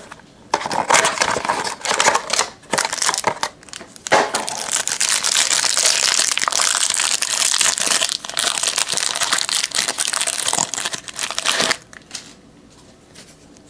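Trading-card pack wrapper crinkling and tearing as it is opened by hand, in irregular loud rustles that stop near the end.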